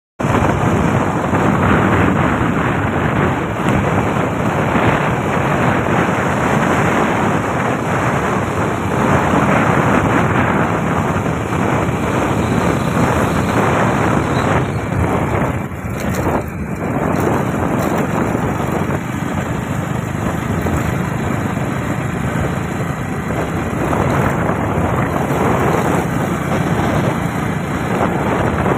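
Steady rush of wind buffeting the microphone while riding a motorbike along a road, with the vehicle's running noise underneath. It dips briefly about sixteen seconds in.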